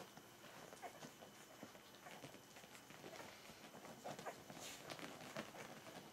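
Faint squeaks and grunts from two-week-old Berger des Pyrénées puppies, with small clicks of nursing and licking as they squirm against their mother. A brief higher squeal comes a little over halfway through.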